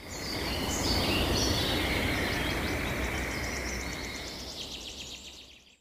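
Countryside ambience of birds chirping, with fast repeated trills, over a steady bed of outdoor noise. It fades in at the start and fades out near the end.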